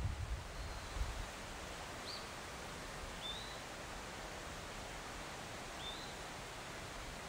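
Outdoor ambience in a bamboo grove: a steady hiss with a few faint, short bird chirps spread through it. There is a low buffeting at the microphone for about the first second.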